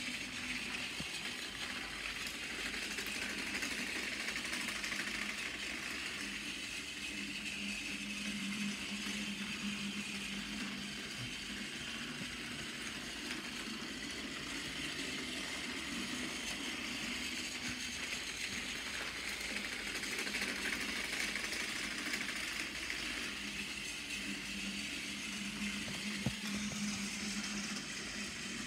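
A C-cell battery-powered Tomy Toby toy tram engine's small electric motor and gears whirring steadily as it runs around plastic track.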